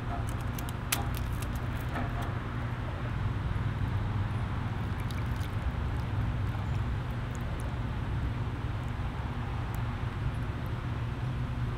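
Steady low mechanical hum, with a few sharp metallic clicks in the first second as tongs knock against the grill's wire fish basket and grate.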